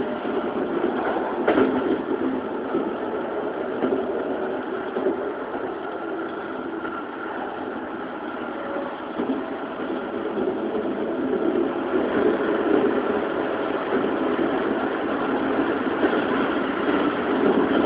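Keikyu New 1000 series electric train heard from inside, running at speed: steady wheel-on-rail rumble with faint steady tones from the Siemens GTO VVVF drive and motors. There is a single sharp click about a second and a half in.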